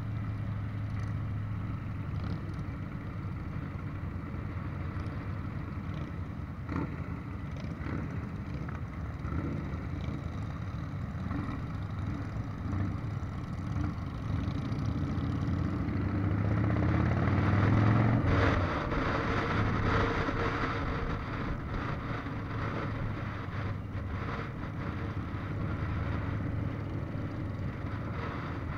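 Motorcycle engine running at riding speed with steady wind rush, heard from on the bike. About halfway through the engine note climbs as the bike speeds up, is loudest a little past the middle, then falls back to a steady cruise.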